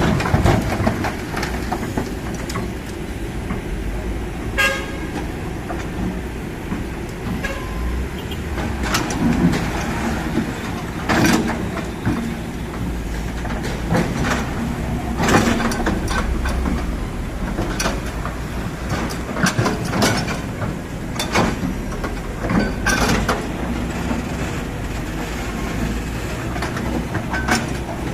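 Kobelco SK200 excavator's diesel engine running steadily, with repeated sharp metallic clanks and knocks from the working machine. A brief horn toot sounds about five seconds in.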